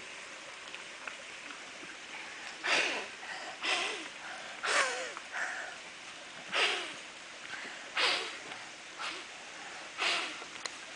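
A small child blowing hard through a plastic bubble wand: about seven short, breathy puffs a second or two apart, starting a little over two seconds in.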